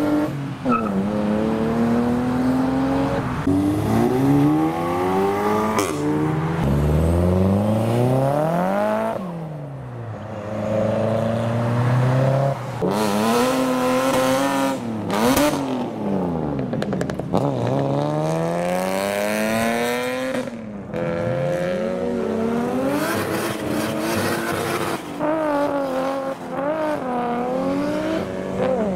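Several modified cars accelerating hard one after another, their engines revving up in pitch and breaking off at each gear change, again and again.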